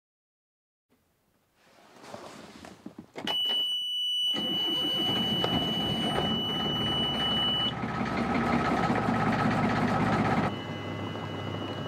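Sailboat's inboard engine being started: the engine panel's warning buzzer sounds a high steady tone, the engine cranks and catches about four seconds in, and the buzzer stops a few seconds later while the engine keeps running steadily. Near the end the engine sound drops to a quieter, steady hum.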